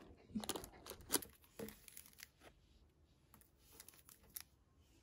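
Faint, irregular rustling and crinkling with small clicks, from baking paper and cookies disturbed as a dog noses through homemade carob dog cookies.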